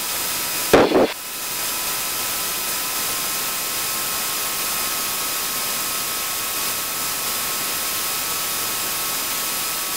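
Steady turbine engine whine at idle: an even hiss with several high steady tones, as from an aircraft turbine turning over after landing. A brief loud burst about a second in.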